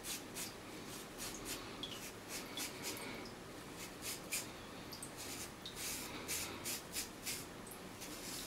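Shavette straight razor (Personna Monsieur Charles with a Personna Mini Shaper blade) scraping stubble off a scalp lathered with shaving gel, in short scratchy strokes about two a second.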